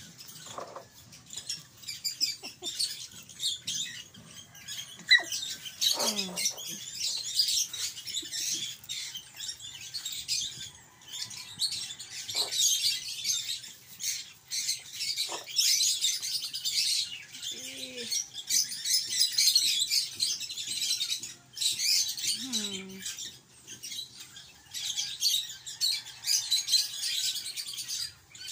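Puppies play-fighting, with constant high squeaky chirping and scuffling. A drawn-out falling whine comes about six seconds in, and another comes later.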